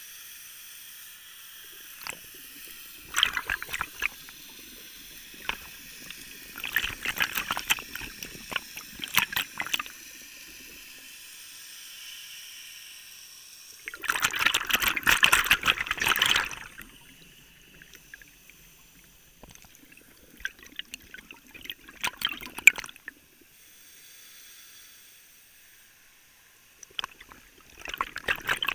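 A diver's exhaled air bubbling out underwater in bursts about every five to six seconds, crackling and gurgling, the loudest burst about halfway through. Quieter steady hiss between breaths.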